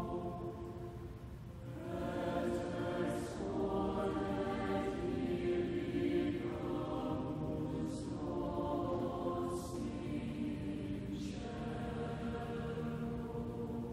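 Background music: a choir singing slow phrases of long held notes, with short breaks between phrases.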